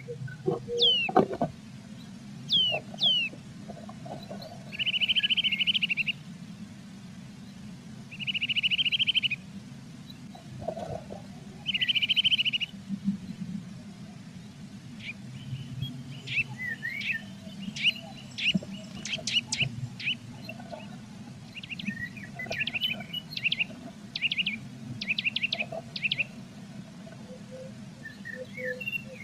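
Blue tits singing and calling, sped up about 1.3 times: a few falling high whistles, then three trilled phrases of about a second each, then a run of short, quick chirps. A low, steady rumble runs underneath.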